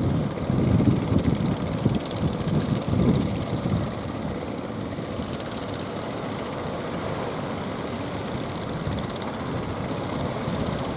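Fishing boat engines running steadily, with strong wind buffeting the microphone in gusts during the first few seconds.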